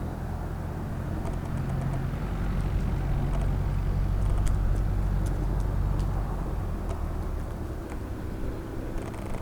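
Piston engine of a light aircraft running at low power while taxiing, swelling a little in the middle and easing off again, with a few faint clicks.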